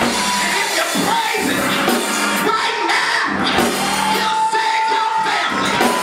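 Gospel church band of organ and drum kit playing, with a woman's voice singing over it through the sound system.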